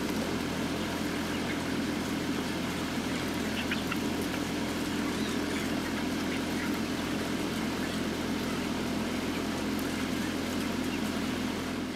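Steady mechanical drone of a broiler shed's machinery, with a few faint chick peeps over it.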